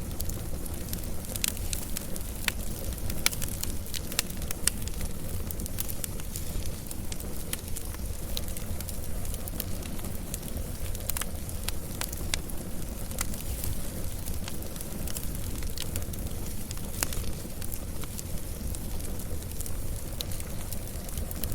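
Wood fire burning with a steady low rumble and frequent sharp crackles and pops at irregular moments.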